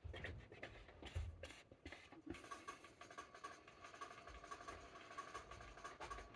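Small items handled and set down on a workbench, a run of light clicks and knocks in the first two seconds or so. After that a faint steady high whine sets in and holds.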